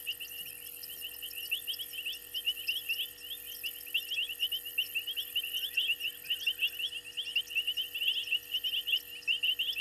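Night chorus of frogs and insects: a dense, continuous stream of many short, high overlapping chirps, with a steady, higher-pitched insect buzz above them.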